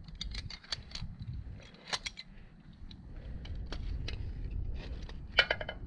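Irregular small metallic clicks and clinks, like hardware or tools being handled, with a louder ringing clink near the end, over a steady low rumble.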